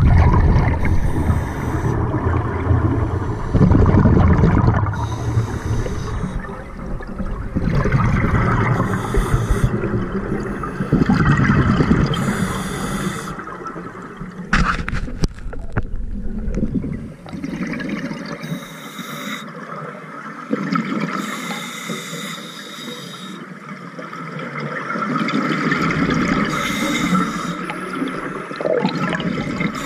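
Scuba diver breathing through a regulator underwater: exhaled bubbles gurgle past the camera in bursts about every four seconds, with quieter breaths in between.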